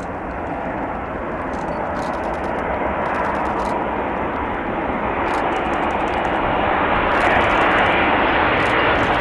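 Airbus A380 on final approach, the roar of its four Rolls-Royce Trent 900 turbofans at approach power growing steadily louder as the airliner comes in low over the runway to land.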